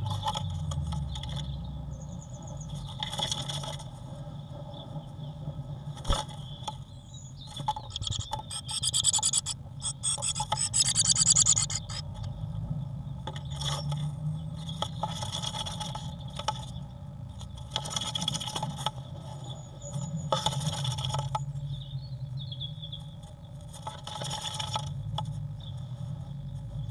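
Great tit moving about inside a wooden nest box, its claws and body scraping and rubbing on the bare wooden floor in repeated bursts as it wriggles, the longest and loudest about ten seconds in. A steady low hum runs underneath.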